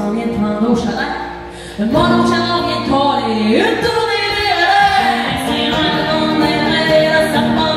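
A woman singing a country song live, accompanied by her own strummed acoustic guitar and a banjo. The music dips briefly about a second and a half in, then comes back fuller.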